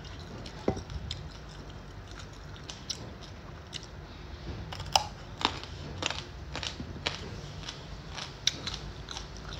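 Raw carrot being bitten and chewed with crisp crunches, a few scattered crunches at first and then a quick run of them from about halfway through.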